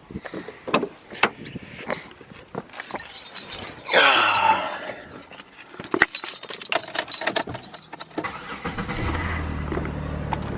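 Car sounds: scattered clicks and knocks, a loud sweeping sound about four seconds in, then a steady low hum over the last couple of seconds.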